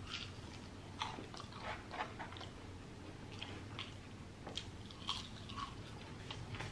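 A person chewing and biting crispy French fries close to the microphone: soft, irregular crunches and small mouth clicks.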